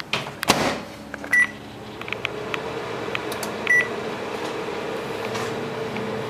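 Microwave oven door shut with a knock, keypad presses with two short beeps as the timer is set to 1:30, then the oven running with a steady hum.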